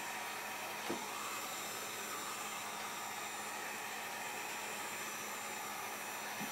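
Hot-air blower running steadily as a hiss of blowing air, heating the iPad 2's edges to soften the adhesive under the broken glass digitizer.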